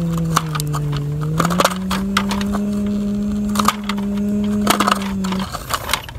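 Dirt and small stones crunching and clicking as a plastic toy excavator's bucket is pushed by hand through a pile of loose soil. Scattered sharp cracks sound over a steady low droning tone, which cuts out briefly near the end.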